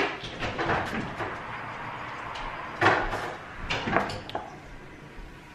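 A few knocks and clicks from a glass being drunk from and set down on a table, the sharpest about three seconds in and another near four seconds.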